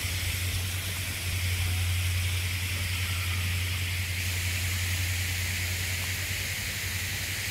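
Steady outdoor background hiss with a low hum beneath it, a little louder from about a second in; no bird calls.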